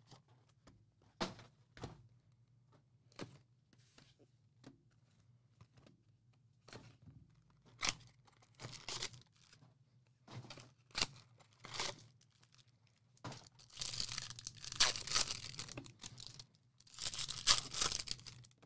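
Trading card packaging being torn open and crinkled. Scattered short rips and rustles come first, then longer runs of tearing and crinkling in the last few seconds.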